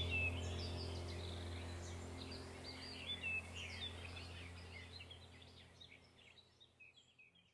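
Birds chirping over a steady low hum, the whole fading out gradually.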